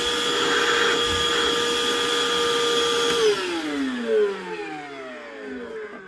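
Ozito PXC 18V cordless wet and dry vacuum's motor running with a steady whine and rush of air. It is switched off about three seconds in and spins down, its pitch falling as it fades.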